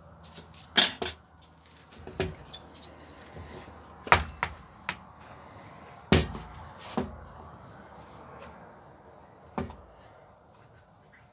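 Tools and a partly dismantled chainsaw body knocking and clattering against a metal workbench as they are handled: a string of separate sharp clacks, the loudest about a second in, about four seconds in and about six seconds in.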